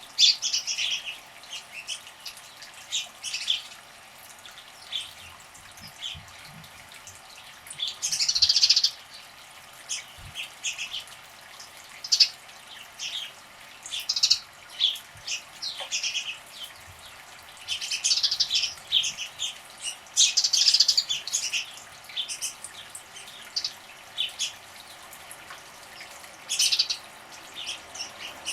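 Small birds chirping in short, sharp calls over and over, with a couple of longer bouts of splashing in bird-bath water.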